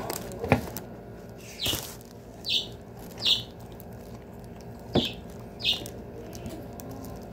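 Close-up eating sounds from a burrito: chewing and lip smacking, heard as a series of short wet smacks and clicks.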